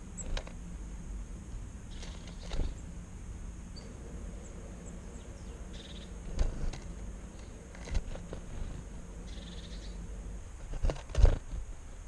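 Outdoor bird-feeder ambience: a handful of dull knocks, the loudest two close together near the end, with short faint bird calls now and then over a steady low background.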